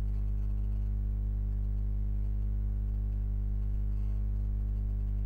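Steady low hum with evenly spaced overtones, unchanging throughout.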